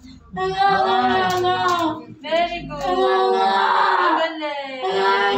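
A young girl crying in long, drawn-out wails, broken by short pauses for breath, while she is held still for a back measurement.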